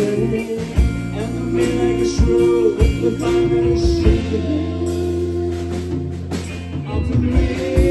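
A band playing a song on guitar, bass guitar and drums, with singing. Drum hits land over a sustained bass line.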